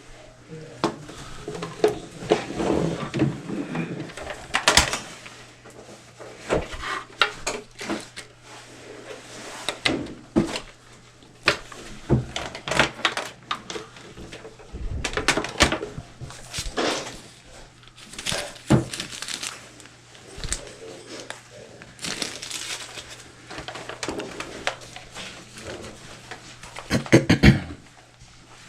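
Objects being handled and set down, giving scattered clicks and knocks throughout, with a louder cluster of knocks near the end, over a faint steady hum and a little low talk.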